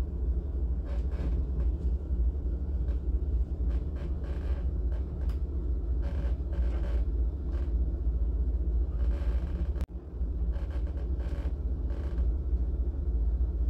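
Steady low outdoor rumble, with a brief dropout about ten seconds in.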